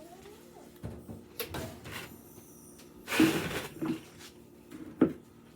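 Kitchen handling sounds: a series of knocks and bumps, with a louder clattering rustle about three seconds in, like doors and items being opened, shut and set down, over a faint steady hum.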